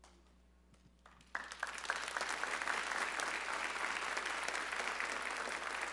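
A congregation applauding: near quiet at first, a few scattered claps about a second in, then steady clapping from many hands.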